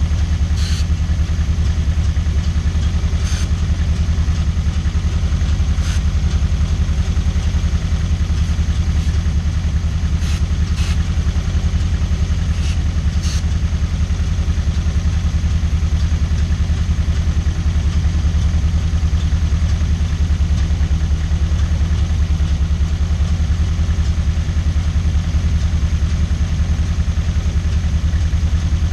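Toyota MR2's 4A-GE 1.6-litre 16-valve four-cylinder engine idling steadily, with no change in speed. In the first half come several brief hisses, short sprays of carb cleaner used to hunt for vacuum leaks.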